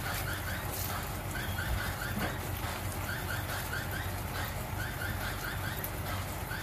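Pork steaks simmering in sauce in a frying pan, a steady bubbling hiss over a low hum. Runs of four or five quick high chirps recur about every second and a half throughout.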